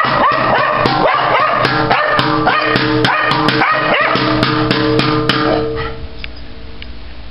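Small dog, a cocker spaniel–poodle mix, barking rapidly and repeatedly at a drum kit, about two barks a second, until the barking stops about six seconds in.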